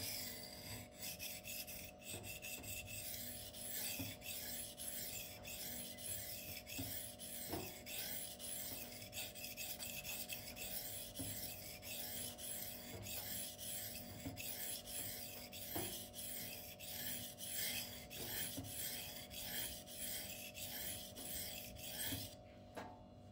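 M390 steel knife blade stroked back and forth across a sharpening stone, a steady run of rasping scrapes that stops shortly before the end, while a burr is being worked along the edge.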